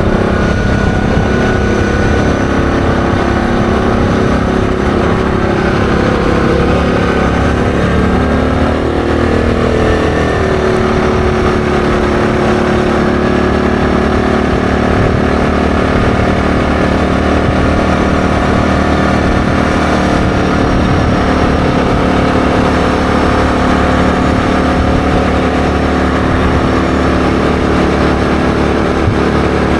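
ATV engine running while the quad rides along at road speed. The engine note wavers and shifts over the first ten seconds or so, then holds steady.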